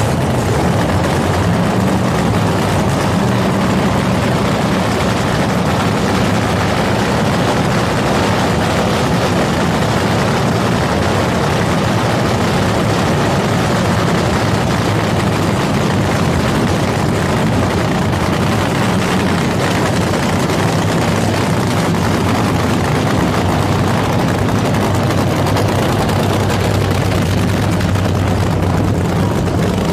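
Supercharged nitro funny car engine running steadily at idle, a loud continuous rumble with a low hum and no revving.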